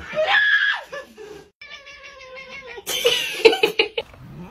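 Domestic cat yowling, a few drawn-out meows in a row.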